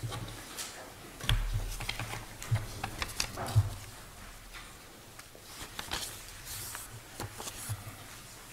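Paper ballots being handled and folded: scattered rustling and small clicks of paper, with a few dull thumps in the first few seconds.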